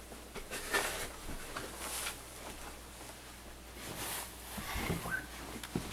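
Faint rustling and a few light knocks and thuds: a person getting up from a table and moving away from it.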